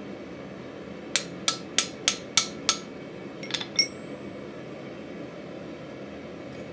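Hammer striking a hand-held chisel six times, about three blows a second, each with a short metallic ring, as the chisel cuts decorative lines into a mild-steel bottle opener on the anvil. A moment later come a few lighter clinks as the steel chisel is laid down on the anvil face.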